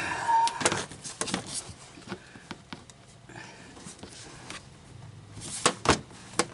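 Hard plastic underbody trim panel being worked into place by hand: a run of clicks, taps and knocks, busiest in the first second and a half and again near the end, with a brief squeak about half a second in.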